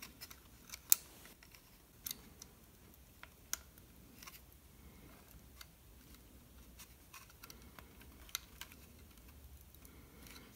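Faint, scattered small clicks and taps as fingers handle an opened plastic RC transmitter and press the antenna lead's tiny metal clasp back onto its circuit board. The sharpest click comes about a second in.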